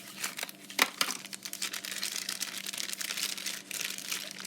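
Crinkling and rustling of the packaging around new motorcycle brake pads as it is opened, with a couple of sharp clicks about a second in.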